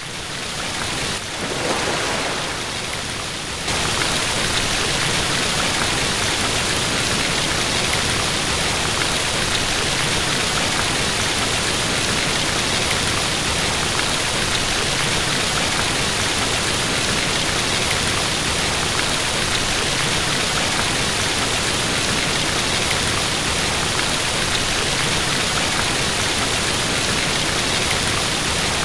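Steady, rain-like hiss of falling water, with no calls or voices over it, getting louder and fuller about four seconds in.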